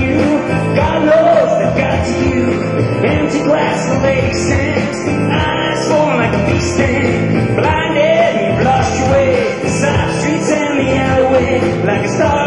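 Live band playing a rock-and-roll song with a steady beat and a melody line over it.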